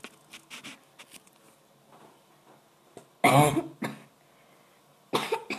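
A boy coughing into his fist: a loud cough about three seconds in with a shorter one right after, and another cough near the end.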